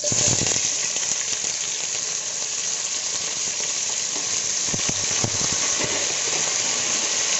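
Diced potatoes, cauliflower, green chillies and peas frying in hot oil with cumin seeds, a loud steady sizzle that starts suddenly as the vegetables are tipped into the pan. A few soft knocks sound about halfway through.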